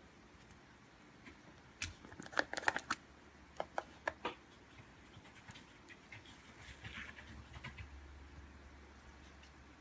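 Cloud slime being worked by hand, giving off a run of small crackling pops and snaps, densest about two to three seconds in and again around four seconds, then softer crinkling.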